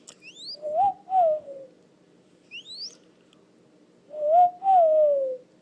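A pet bird calling: soft hooting notes that glide up and then fall, a pair about a second in and a longer pair about four seconds in, with quick high rising whistles near the start and about two and a half seconds in.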